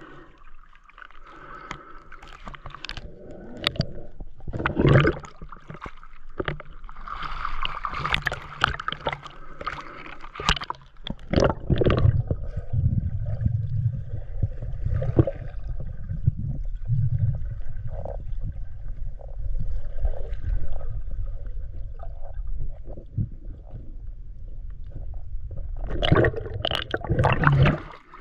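Lake water splashing and gurgling around a diver at the surface, with a muffled low underwater rumble while the diver is down on the bottom, and more splashing near the end as he surfaces.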